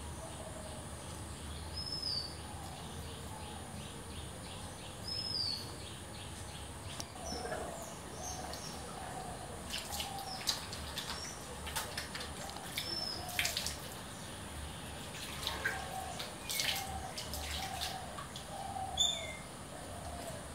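Birds calling outside: short, down-slurred chirps every few seconds over softer warbling calls and a steady high hiss. From about halfway through come splashes of water and small clacks as hands are washed under a sink tap.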